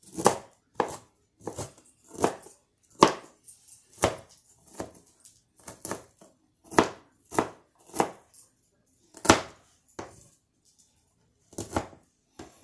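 Knife chopping broccoli florets on a cutting board: a steady series of sharp knocks, roughly one to two a second, with a short pause near the end.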